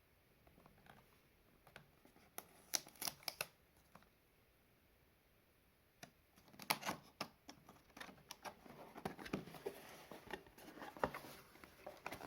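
Cardboard box and paper packaging being handled while a camera is unboxed: a few sharp clicks and taps about two to three seconds in, then from about halfway on, steady rustling with scattered clicks.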